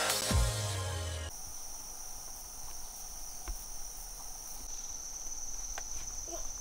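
The tail of a music jingle cuts off about a second in, leaving insects in the surrounding forest buzzing steadily on one high, unbroken note, with a few faint ticks.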